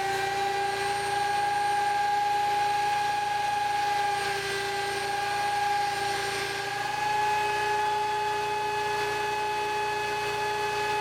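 Ridgid 13-inch thickness planer running, its motor and cutterhead giving a steady whine over a rushing noise; the pitch sags slightly and comes back up about seven seconds in.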